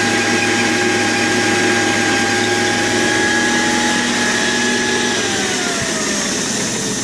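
Metal lathe running with a steady motor hum and whine, then switched off about five seconds in, the whine falling in pitch as the spindle coasts down.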